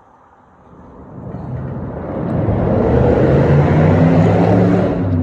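A motor vehicle's engine and rushing noise swell from quiet to loud over about two seconds as it accelerates or draws close, then hold and ease slightly near the end.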